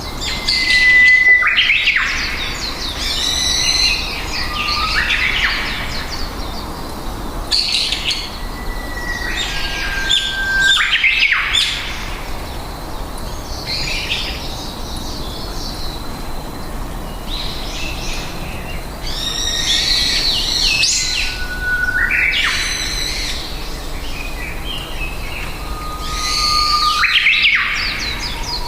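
Songbirds singing: a repeated phrase of a short held whistle that breaks into a quick run of high chirps, four times, with softer chirping between.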